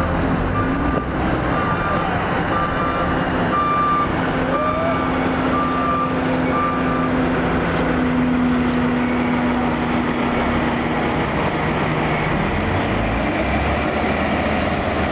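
A heavy truck's engine running steadily while its reversing alarm beeps about once a second; the beeping stops about seven seconds in and the engine runs on.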